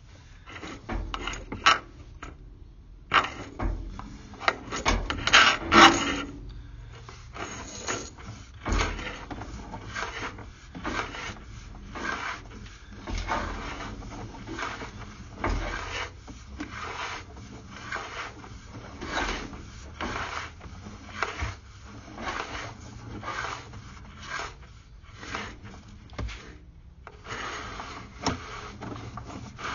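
Drain inspection camera being pushed along a pipe: the push rod and camera head scraping and rubbing in irregular short strokes, a few louder ones a few seconds in.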